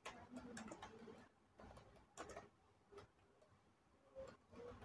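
Faint, irregular clicking of computer keyboard keys as text is typed.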